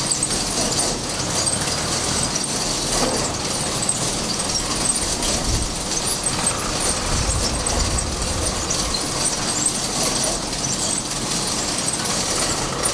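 Front-end loader driving up with its engine running, over steady high-pitched squealing and squeaking. The low engine rumble grows about five seconds in as the loader comes closer.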